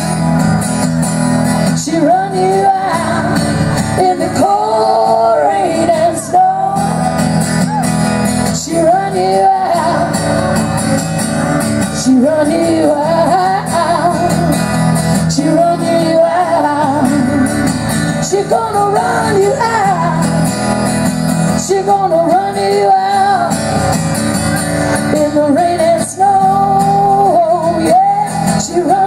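Two women's voices singing a folk song together to a strummed acoustic guitar, performed live.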